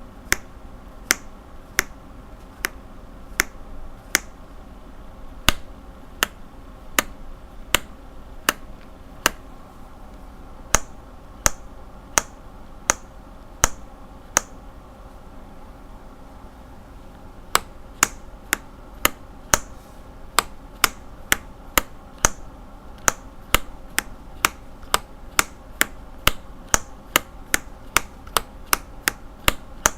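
Lubed linear mechanical keyboard switches pressed one keystroke at a time, each one a sharp clack. The presses come a little more than one a second at first, stop for about three seconds around the middle, then start again at two to three a second.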